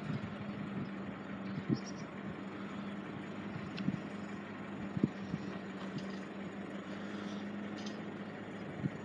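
A vehicle engine idling with a steady low hum, with a few soft knocks here and there.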